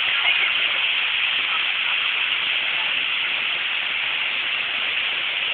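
A steady, loud hissing noise, mostly high-pitched and without any tone, that sets in just before and holds even throughout.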